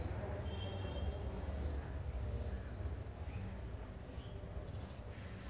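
An insect chirping faintly in the background, short high-pitched chirps repeating evenly about twice a second, over a steady low rumble.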